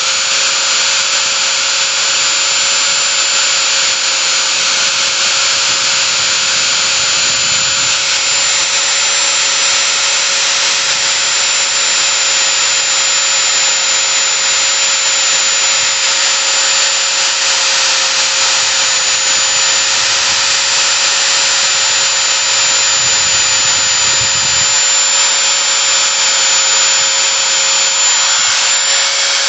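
Angle grinder running at a steady high whine, its disc grinding the cutters of a chainsaw chain to sharpen them, with a constant hiss of metal being ground.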